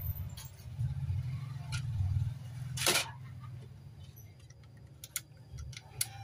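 Clicks and light rattles of a TV power supply board and its wire connectors being handled, with one brief scrape about three seconds in and a quick run of clicks near the end, over a low steady rumble.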